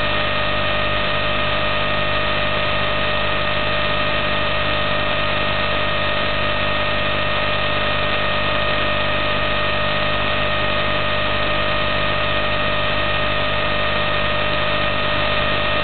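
A steady hum over a hiss, with several constant high tones running through it and no change in level.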